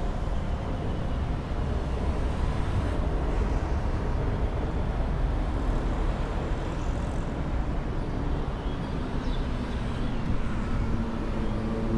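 Steady road traffic noise from a jammed multi-lane city street: a low rumble of car, bus and motorbike engines idling and creeping forward. A droning engine note comes in near the end.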